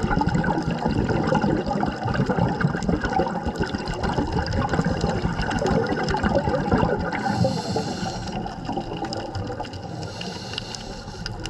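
Muffled bubbling and gurgling of water heard underwater, with two short stretches of higher hiss about seven and ten seconds in.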